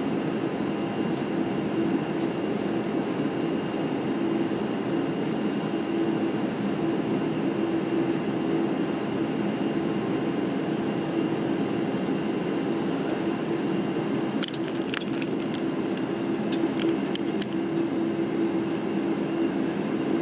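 Cabin noise of a Boeing 747-8i taxiing, heard from inside the cabin: a steady engine hum with a low, even drone. A few light clicks or rattles come about three-quarters of the way through.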